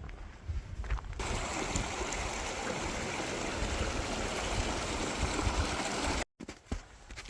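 Stream water rushing: an even, full rush that starts abruptly about a second in and cuts off sharply near the end. Before it, wind rumbles on the microphone.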